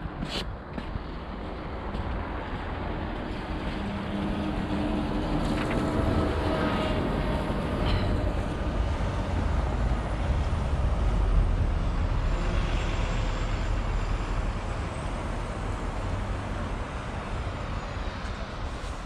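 Street traffic: a motor vehicle passes close by over a steady low rumble, growing louder toward the middle and easing off after.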